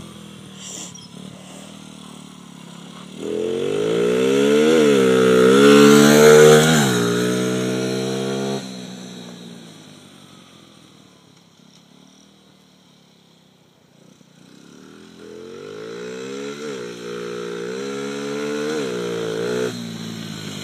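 Skyteam Monkey minibike's single-cylinder four-stroke moped engine, derestricted, revving hard up through the gears, the pitch climbing and dropping at each shift, then fading away into the distance. It grows louder again as the bike rides back, revs rising through the gears once more.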